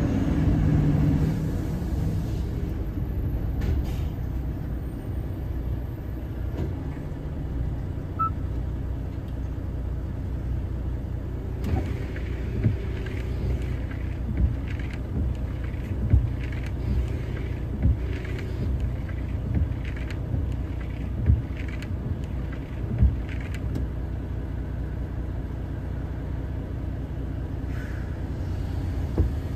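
Truck engine rumbling low and steady, heard from inside the cab while the truck slows and stands in traffic. Through the middle a sharp tick repeats about every second and a half.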